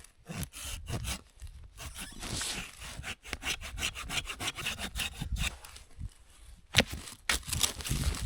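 A hand saw cutting into a piece of resinous fatwood in rapid, rhythmic back-and-forth strokes, to see whether the wood is dry inside. A couple of sharp cracks come near the end.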